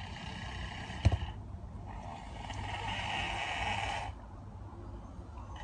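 Snoring of a sleeper still groggy from sedation for dental work. One snoring breath ends about a second and a half in, with a short knock just before it ends, then a louder, longer snore follows from about two to four seconds in.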